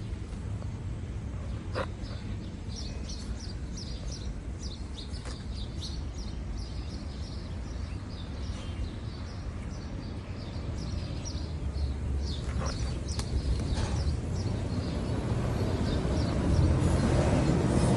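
Small birds chirping in quick, short calls, over a steady low rumble that grows louder over the last few seconds.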